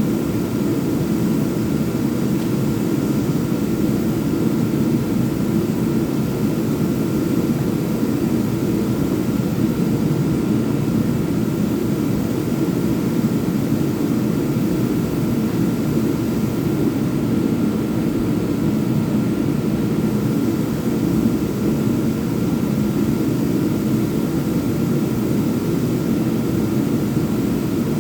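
Power sander running steadily on wood: a continuous loud machine whir, with a faint steady whine above it.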